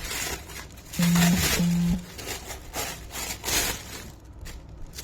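A plastic helmet visor being handled, with a run of light scraping and rubbing noises. About a second in come two short, steady low tones, one right after the other.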